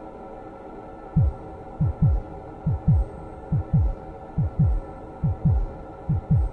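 Heartbeat sound effect: paired low thumps (lub-dub), each sweeping down in pitch, starting about a second in and repeating a little faster than once a second. A steady hum runs underneath.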